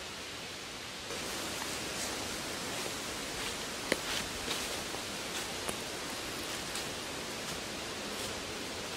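Footsteps rustling and crackling through dry fallen leaves, with sharp snaps, over a steady background hiss of the woods. The steps begin about a second in.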